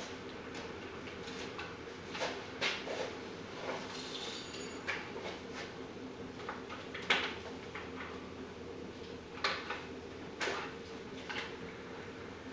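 Scattered small clicks, taps and rattles of hands fitting together small plastic parts and wiring, the sharpest click about seven seconds in, over a steady low hum.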